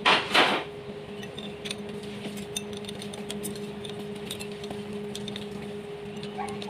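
Small metallic clicks and clinks of hand wrenches being worked on the bolts of a Komatsu four-cylinder engine's cylinder head, scattered irregularly over a steady background hum. A brief loud noise comes right at the start.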